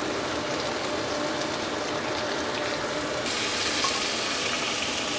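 Chopped onions sizzling in hot oil in a pot, a steady hiss that grows louder and brighter about three seconds in.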